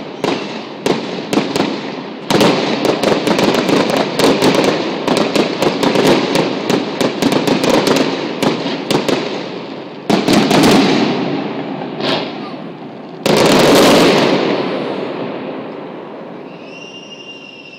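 Fireworks display: a long run of rapid sharp cracks and bangs, then two big booming bursts about ten and thirteen seconds in, the second one the loudest, each fading away slowly.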